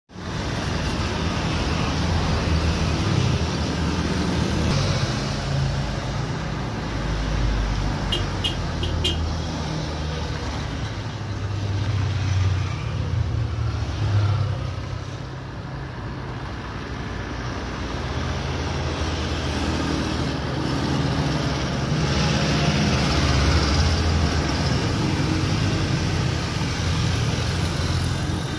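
Steady distant rumble of an Airbus A320's CFM56 jet engines as the airliner moves along the runway, swelling and easing slightly.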